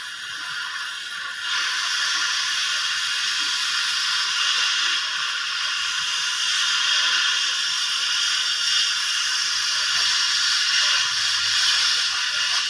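Electric arc welding: the arc gives a steady crackling hiss that grows louder about a second and a half in and then holds.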